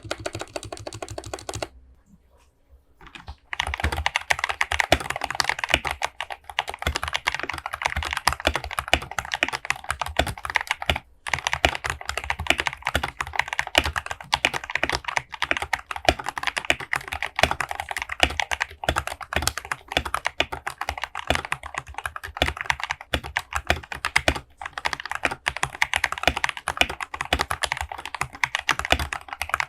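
Typing on a Rexus Daxa M71 Pro mechanical keyboard with linear Gateron Red switches, modded with lube, TX switch films, foam dampening and a band-aid mod. A short burst of typing is followed by a pause of about a second and a half. Then rapid, continuous key clatter starts about three and a half seconds in, with one brief break near the middle.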